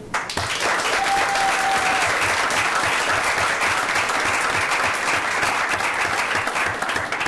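A roomful of people applauding, breaking out suddenly and going on steadily for about seven seconds before dying away at the end.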